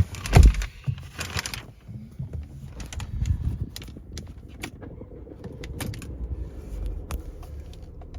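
Mercedes C200's four-cylinder turbo petrol engine starting, with a loud surge as it catches under a second in, then settling to a steady idle, heard from inside the cabin. Scattered sharp clicks sound over the idle.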